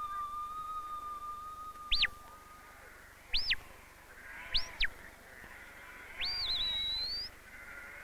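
A shepherd whistling commands to sheepdogs: four sharp whistles that sweep up in pitch and fall back, the last longer with a warble in it. Sheep bleat under the later whistles, and a held musical note fades out in the first three seconds.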